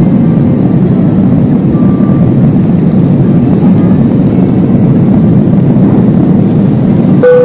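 Steady airliner cabin noise in flight: an even, loud rush of engine and airflow. Near the end there is a click, then a single steady tone begins.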